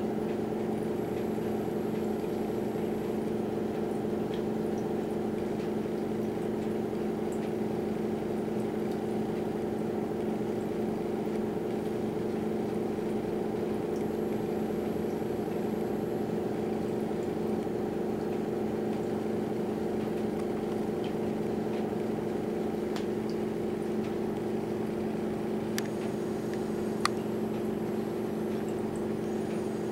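Home-built tornado vortex machine running, its fans giving a steady electric motor hum. A single sharp click sounds near the end.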